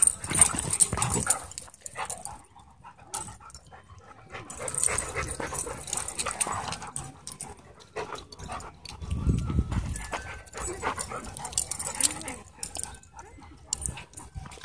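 Dogs play-wrestling together, with short dog vocalizations, yips and whimpers, coming in irregular spells.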